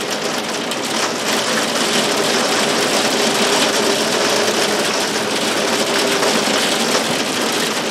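Heavy thunderstorm rain pouring down, a loud, steady, dense hiss. A faint steady hum runs under it through the middle.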